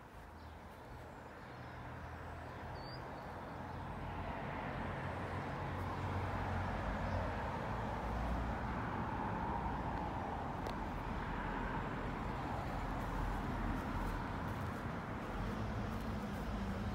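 Steady noise of a distant engine, growing louder over the first six seconds or so and then holding level.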